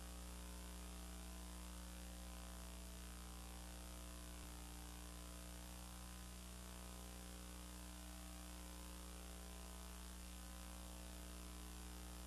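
Faint, steady electrical hum with a buzzy stack of overtones and light hiss: mains hum on an old film soundtrack transfer.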